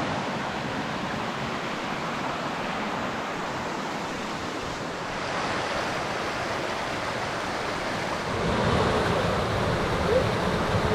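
Waterfall: a steady rush of falling water. About eight seconds in it gets louder, with a deeper rumble underneath.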